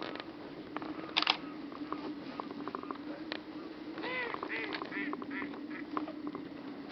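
A duck quacking, a quick series of four or five calls about four seconds in. Scattered sharp clicks run over a steady low hum, the loudest a short cluster of clicks about a second in.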